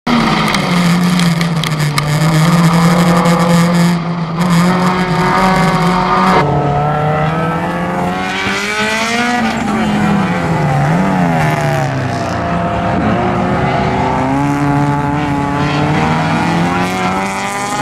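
Race car engines under hard throttle: for the first six seconds a steady engine note with loud wind and road hiss from inside a car, then, after a sudden change, two cars' engines rising and falling in pitch as they race past.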